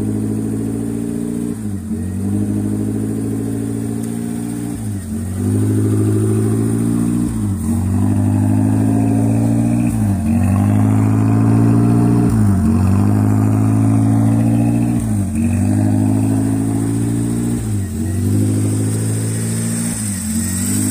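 BMW engine idling just after a cold start, its speed sagging and picking back up about every two and a half seconds in an uneven, hunting idle.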